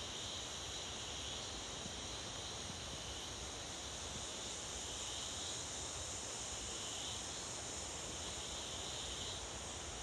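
Steady high-pitched chorus of forest insects. Its lower band swells and fades every couple of seconds over an even higher hiss.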